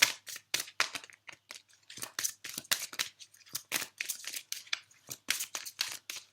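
A deck of oracle cards being shuffled by hand: an uneven run of crisp, papery card snaps, several a second.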